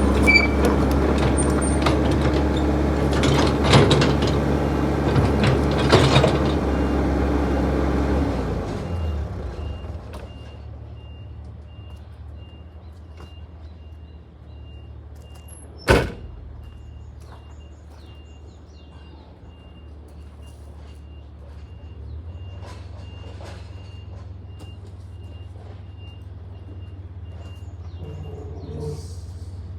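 Backhoe's engine running under throttle, then dropping to a low idle about eight seconds in. While it idles, a high beeper sounds short, evenly spaced beeps through most of the rest, and there is one sharp click about halfway through.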